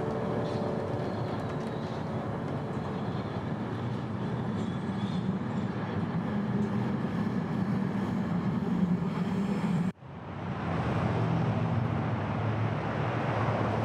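Steady running rumble of a subway train carriage in motion. About ten seconds in it cuts off abruptly, and a steady rumble of city traffic fades in.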